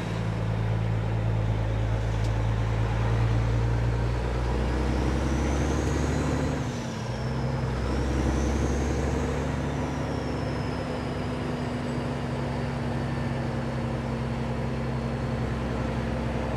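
Kenworth W900 tractor's diesel engine running under load, a steady low drone with a brief break in the note about seven seconds in. A thin high whistle rises and falls over the middle of the stretch.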